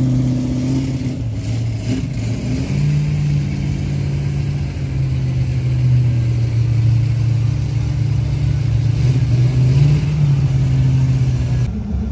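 Car engine running at idle with light revs, its pitch stepping up a little about three seconds in and again near ten seconds, then changing suddenly just before the end.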